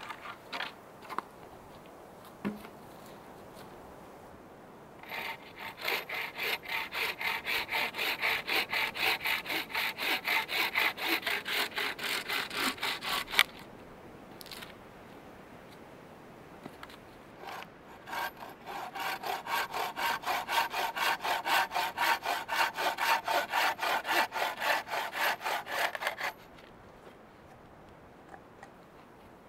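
Handmade bowsaw cutting through a log with steady back-and-forth strokes, in two runs of about eight seconds each with a pause between. A few light knocks come before the first run.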